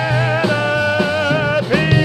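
Live performance of a show tune: a singing voice holds a long note with vibrato over band accompaniment, then a new sustained chord comes in near the end.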